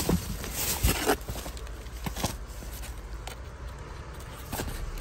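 Plastic wrap and cardboard boxes rustling and crackling as a gloved hand digs through them, busiest in the first second, then a few scattered crinkles.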